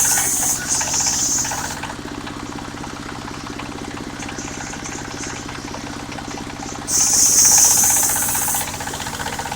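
A mobile circular sawmill's engine running steadily, with the saw blade cutting through jackfruit wood in a loud, high-pitched rush. The cut trails off in the first two seconds and comes again for about two seconds near the end.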